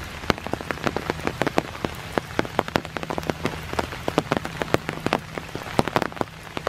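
Rain falling on a pond and the leaves around it: an even hiss with many sharp taps of single drops landing close by.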